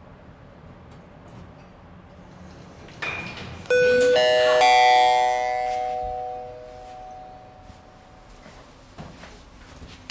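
Elevator's electronic two-note ding-dong chime, ringing out loudly and fading over about three seconds, with a short high beep just before it.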